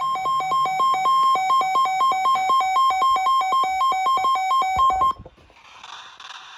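Electronic alert tone: two pitches beeping rapidly, about five pulses a second. It cuts off suddenly about five seconds in, leaving a quieter hiss.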